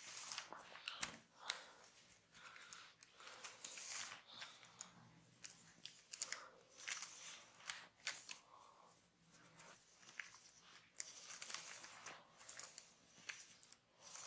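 Faint, close-miked crackling and scratching of a barber's hands rubbing and scratching hair and skin during a massage, in an irregular run of small crackles and rustles.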